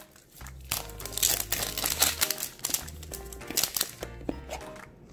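Printed plastic wrapper from a capsule toy crinkling and rustling in the hands as it is pulled out and torn open, over background music.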